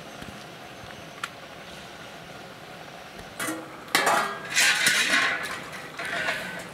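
Stainless steel plate clattering and scraping: after a quiet stretch with one small click, a run of loud metallic scrapes and clinks starts about three and a half seconds in and eases off near the end.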